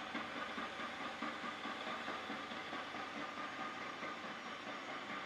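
Mori Seiki MS 1250 gear-head lathe running steadily: an even mechanical hiss and hum from the spindle and headstock gearing, with a faint steady whine.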